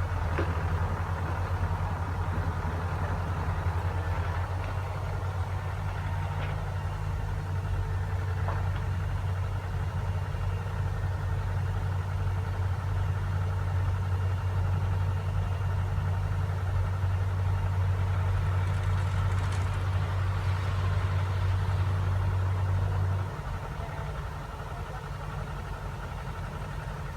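A heavy farm machine's engine running steadily with a deep hum. About 23 seconds in, the deep hum cuts off and the engine runs on more quietly.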